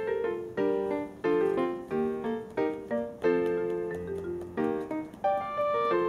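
Background piano music: a melody of single notes and chords, struck about twice a second, each note fading after it is played.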